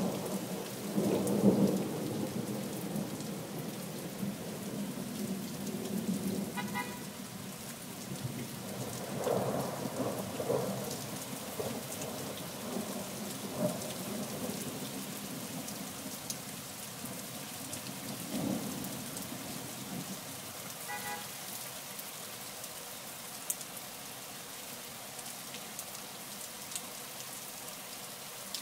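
Steady rain falling, with thunder rumbling, loudest in the first couple of seconds, and further rolls about a third of the way in and again past the middle.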